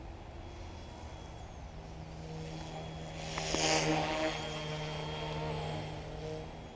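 Remote-control Huey helicopter's motor and rotors whirring, a steady pitched hum that grows louder about halfway through as the helicopter comes close, then eases off. A low wind rumble sounds on the microphone throughout.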